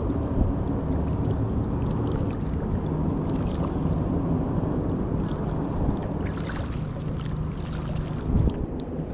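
Magnet-fishing rope and magnet being worked in the water and pulled up, with water splashing and dripping, over a steady low hum.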